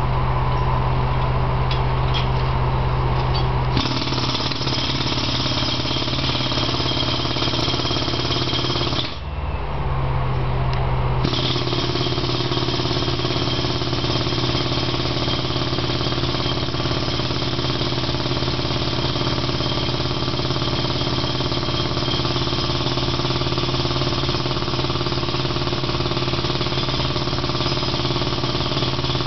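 Jackhammer breaking concrete in long continuous runs, starting a few seconds in, stopping for about two seconds near the ten-second mark, then going on steadily. A steady low hum runs underneath.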